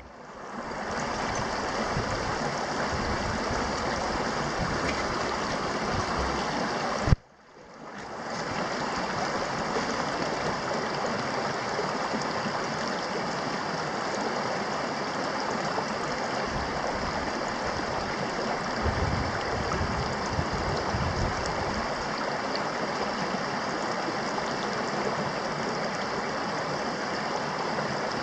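Shallow creek water running over rocks, a steady rushing. About seven seconds in there is one sharp click, then the sound drops out briefly and fades back in.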